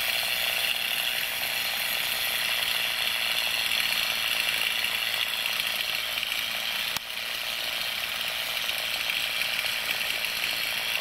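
A string trimmer running steadily as it cuts tall grass, its sound dipping briefly about seven seconds in.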